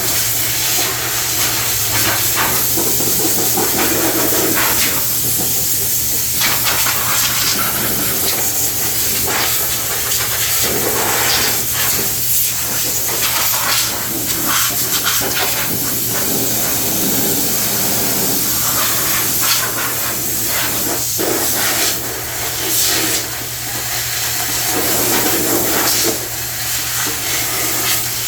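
Loud hissing spray blasting caked debris off a zero-turn mower deck, over a steady low hum, the spray letting up and starting again several times.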